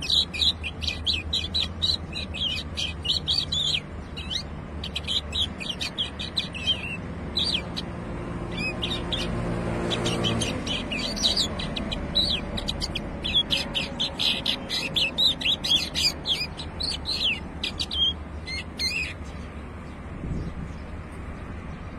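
A caged tuffahi (common bulbul) sings a fast run of high chirps and warbled notes in quick succession, with a short pause partway, and falls silent about 19 seconds in. A low rumble swells underneath and stops about ten seconds in.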